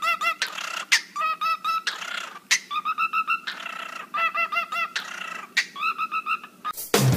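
Cockatiel singing in quick runs of short, repeated chirps, about five phrases in all, with a few short noisy bursts between the phrases.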